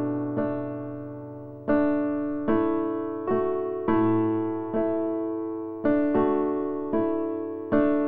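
Soft solo piano background music: slow notes and chords, each struck and left to fade.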